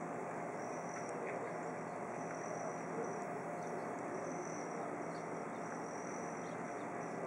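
Steady ambient hiss with a low hum under it, and faint high-pitched buzzing trills that come and go every second or two. The perched hummingbird itself makes no audible sound.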